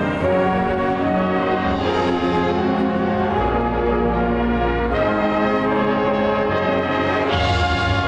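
Marching band playing, led by its brass section in held chords. A deep low note sounds through the middle, and the band swells brighter and fuller near the end.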